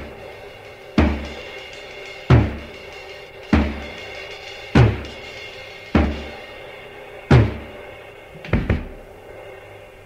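Instrumental rock passage without vocals: slow, heavy drum hits about every 1.2 seconds, bass drum with snare and cymbal, over sustained chords; near the end the drummer plays two quick hits.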